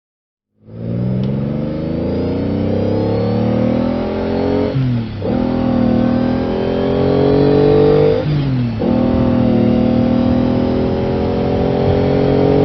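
Car engine under way, accelerating through the gears. After a brief silence the engine comes in and its note climbs steadily, then drops sharply at a gear change, which happens twice, about five seconds in and again around eight and a half seconds. After each change the note climbs again.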